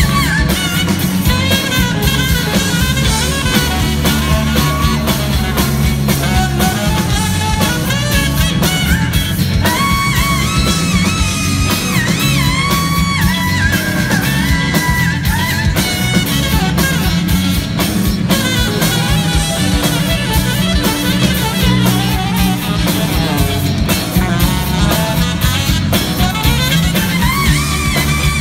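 Live rock band playing loud, with electric guitars, bass and drums under a saxophone playing a bending lead line.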